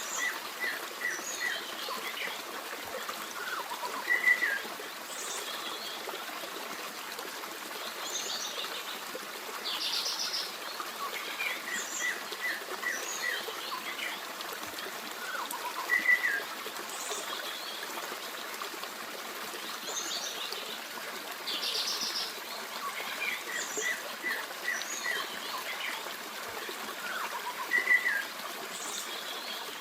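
Forest stream babbling steadily under songbirds calling: runs of quick chirps, short trills and whistled notes. A louder chirp comes about every twelve seconds, and the same bird phrases recur at that spacing.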